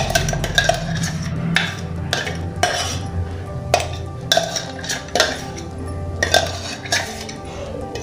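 A metal spoon scraping and clinking against the inside of a stainless-steel mixer jar, emptying thick blended mango pulp into a steel bowl: a dozen or so irregular metallic scrapes and knocks.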